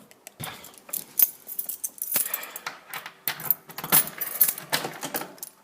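Irregular metallic clicking, rattling and jangling at a five-lever mortice sashlock as the lock is worked on.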